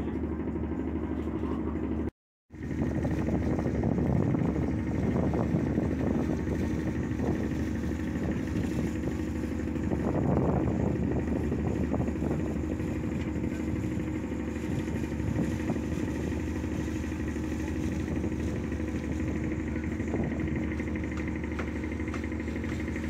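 Diesel engine of a passenger motor ship running steadily, a low drone under a noisy rush. The sound cuts out for a moment about two seconds in.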